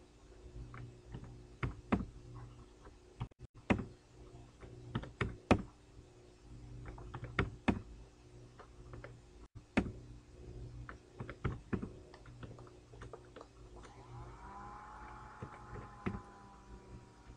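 Computer keyboard keys and mouse buttons clicking at an irregular pace, as edge loops are selected and scaled with S, Y, 0 shortcuts, over a steady low hum.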